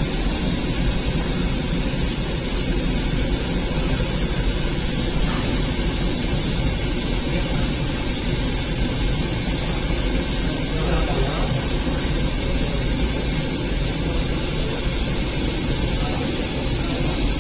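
Gas-fired rotating bread oven running with a steady, unbroken rush of burner noise.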